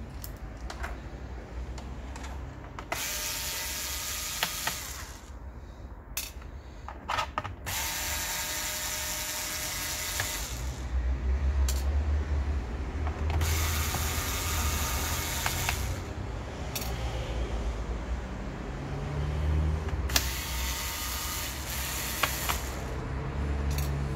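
A screwdriver backing screws out of a laptop's plastic bottom panel, in four spells of two to three seconds each with clicks between them. A low rumble runs under the second half.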